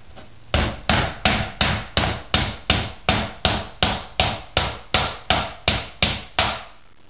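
A wooden spoon whacks the back of a halved pomegranate sitting on a plastic 60 Second Pomegranate Deseeder bowl, hitting hard and evenly about three times a second. It is knocking the seeds out of the rind into the bowl. The strikes stop about six and a half seconds in.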